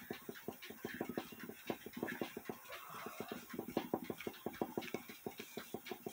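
A cloth rag rubbing briskly back and forth on a small metal clock housing, wiping off dirt and grime in quick, even strokes.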